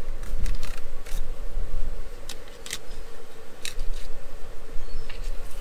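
Fillet knife cutting along a large yellow jack, with scattered sharp crackles as the blade scrapes and cuts through the fish's tough scales near the tail, over a steady low rumble.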